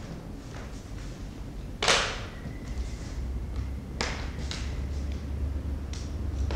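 Brush and hand working at a canvas on an easel: a few sharp knocks and short scrapes, the loudest about two seconds in with a faint ring after it, over a low rumble.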